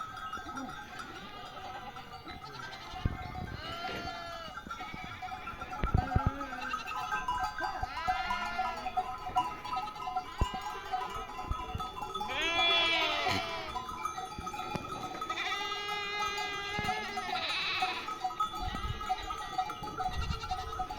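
A flock of sheep bleating, with many overlapping calls rising and falling in pitch over a steady ringing that is typical of livestock bells.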